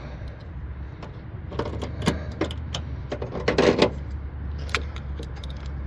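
Metal clicks and clinks of hand tools working on a loose ground wire connection, over a steady low hum, with a denser cluster of clicks a little past halfway.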